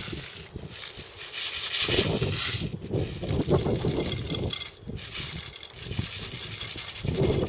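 Plastic airsoft BBs rattling and clicking as they are poured from a bottle into an airsoft M16's high-capacity magazine, with low rumbling stretches underneath.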